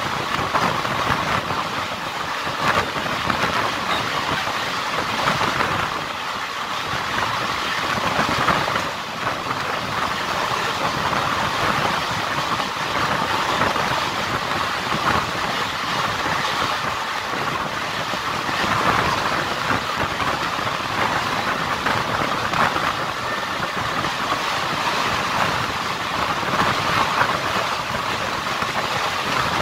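Indian Railways passenger coach running at speed on the track, heard from the coach window: a steady rolling noise of wheels on rails with a constant irregular rattle and clatter.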